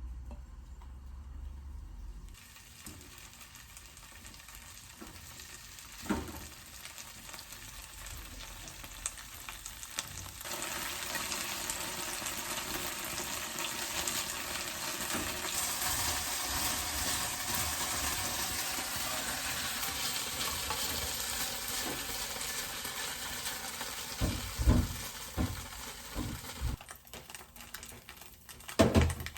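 Food frying in a pan with a steady sizzle that starts a couple of seconds in and grows louder about ten seconds in. Near the end it eases off and a few knocks of a utensil against the pan come through.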